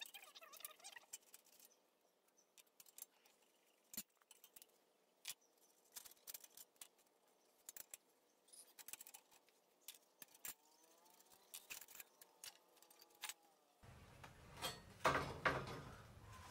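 Scattered light metallic clicks and taps as a thick steel block is handled against a clamped steel cutting jig. Louder knocks and handling noise come in the last few seconds as the heavy block is gripped and moved.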